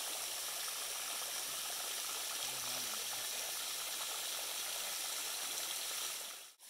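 Steady rushing, bubbling water from a pond aerator churning the surface. It cuts off abruptly near the end.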